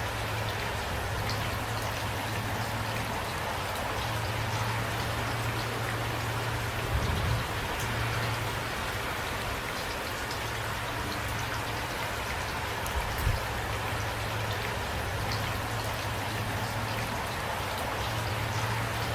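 Steady rain falling, individual drops ticking over an even hiss, with two brief low thumps about seven and thirteen seconds in.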